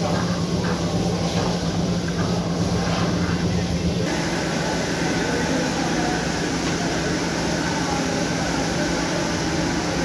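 Steady mechanical hum of workshop machinery, a constant low tone under a noisy wash. The deepest rumble drops away about four seconds in.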